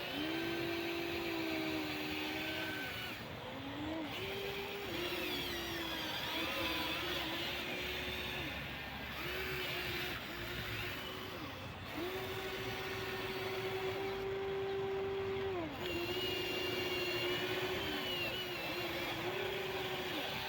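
Electric motors of a Huina 1593 RC excavator whining in repeated stop-start spells as its arm and grapple move, each spell rising in pitch as a motor spins up and dropping as it stops. The longest run is about four seconds, past the middle.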